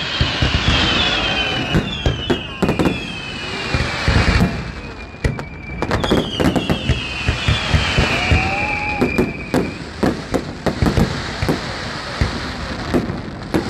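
Fireworks display: many sharp bangs and crackling bursts in quick succession, with several whistling shells whose whistles fall in pitch, the longest lasting a few seconds in the middle.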